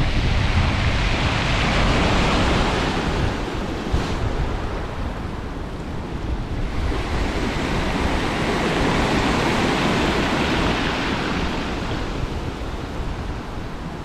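Sea waves breaking and washing up over a pebble beach, the surf hiss swelling twice as two waves run in and draw back. Wind buffets the microphone with a low rumble underneath.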